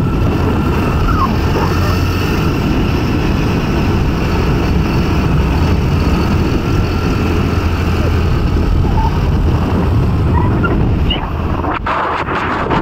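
Motor scooter running along a road, its engine hum mixed with wind rushing over the phone's microphone. A few knocks from the phone being handled near the end.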